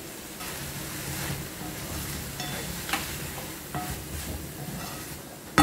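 Finely chopped snake gourd sizzling in a pan as it is stirred and sautéed, the spatula clicking lightly against the pan a few times. One loud metal clink near the end.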